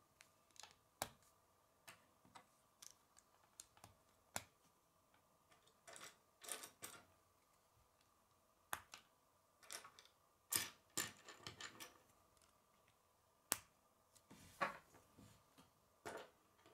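Plastic K'nex rods and connectors clicking as pieces are handled and snapped together, with irregular sharp clicks and a few short rustles.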